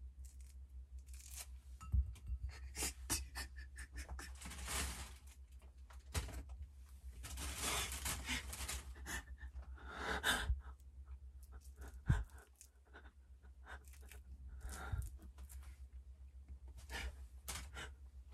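A person breathing heavily close to the microphone, with scattered clicks and rustling of handling.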